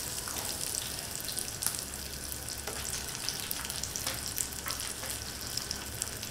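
Hot oil sizzling steadily in a frying pan as marinated chicken leg pieces fry, with a few faint crackles and clicks scattered through it.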